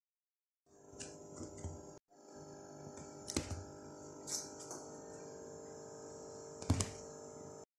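A steady room hum with a faint high whine, broken by a few light knocks and taps, the sharpest about a third of the way in and near the end. The sound drops out briefly about two seconds in.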